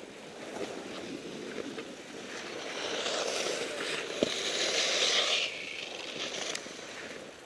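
Skis hissing and scraping over packed snow during a downhill run, with wind on the microphone. The scraping grows louder from about three seconds in and drops off suddenly at about five and a half seconds, with one sharp click just after four seconds.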